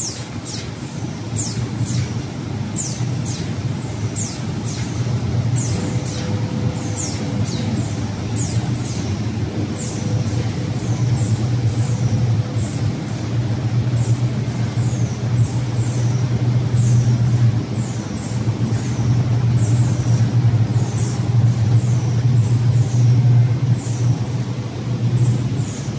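Corrugated-board production line running: a steady low machine hum with a fainter steady whine above it, and short high falling chirps repeating about once or twice a second.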